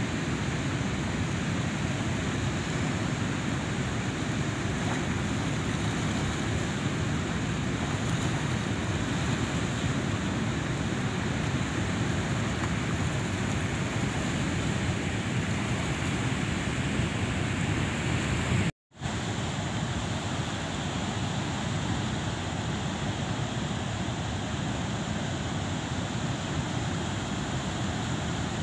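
Steady rush of water pouring through a weir's open sluice gates, with a brief dropout about nineteen seconds in.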